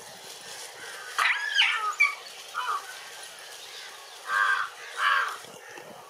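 An animal calling several times: one longer call about a second in, a short call, then two calls close together near the end, over a steady background hiss.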